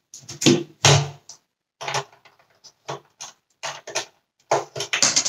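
Irregular clacks and knocks of hard plastic from the cyclone unit of a Dyson Cinetic Big Ball vacuum being handled, as its first stage is worked loose after its screws are out.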